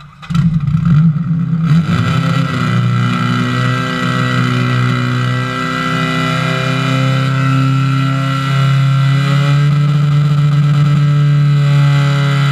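Portable firefighting pump engine starting up about a third of a second in, revving up around two seconds in, then running steadily at high revs while it pumps water through the hoses.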